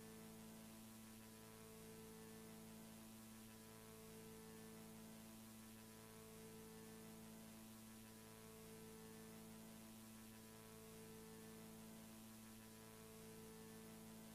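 Near silence: a faint steady electrical hum over hiss, a few of its tones swelling and fading about every two seconds.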